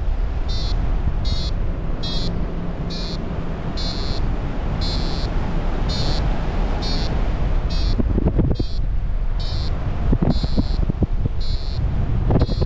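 Paragliding variometer giving short high-pitched beeps at an even pace, a little more than one a second, over wind rushing on the microphone.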